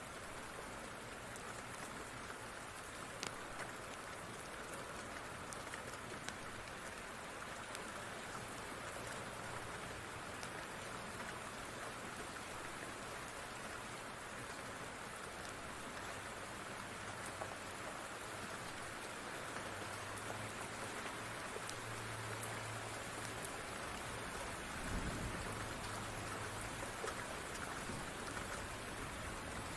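Steady rain falling on a surface, with scattered sharp crackles from a wood fire in a fireplace. A low rumble builds late on, with a brief low thump about 25 seconds in.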